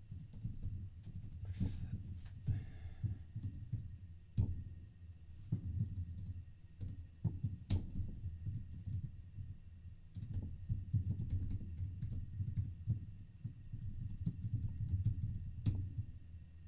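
Typing on a computer keyboard: irregular runs of keystrokes with short pauses, and a few sharper key clacks.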